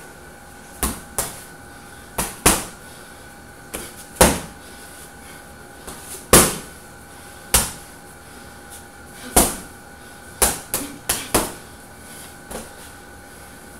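Boxing gloves punching a hanging heavy bag: about fifteen short thuds at an uneven pace, some single blows and some quick runs of two to four punches.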